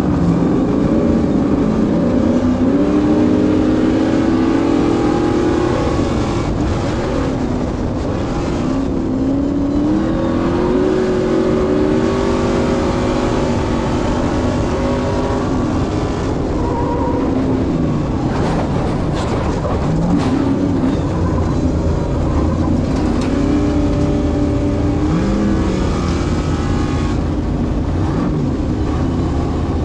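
Stadium Super Truck's V8 engine heard from inside the cabin at racing speed, revving up and falling back again and again through gear changes. A run of knocks and rattles comes about two-thirds of the way through.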